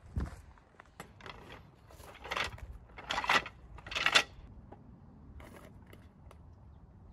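Footsteps crunching on gravel and a wooden-slat folding camp table being set down and pressed into place. It comes as a few short crunches and clatters, the loudest about four seconds in.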